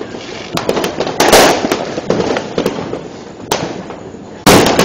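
Fireworks and firecrackers going off: scattered sharp cracks and pops, a louder crackling burst just over a second in, and the loudest bang near the end.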